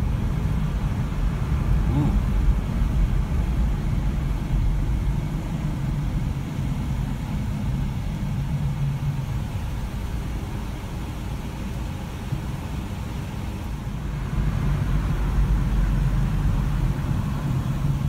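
Road noise inside a moving car: a steady low rumble of engine and tyres in slow traffic. It eases off in the middle while the car sits at a red light and grows louder again near the end as it pulls away.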